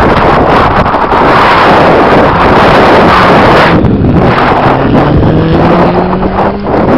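Heavy wind buffeting a helmet camera's microphone, a loud rushing. From about four seconds in, a low hum comes through and rises slowly in pitch, stopping shortly before the end.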